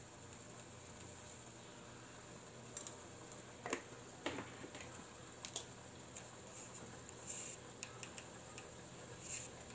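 Pot of broth boiling on a gas stove: faint steady bubbling and burner noise, with scattered light clicks and taps from about three seconds in.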